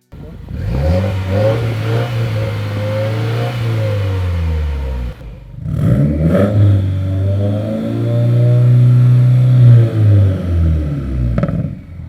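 Subaru WRX turbocharged flat-four engine and exhaust revving twice: each time the pitch climbs, holds steady for a few seconds, then drops away. There is a short break about five seconds in between the two runs.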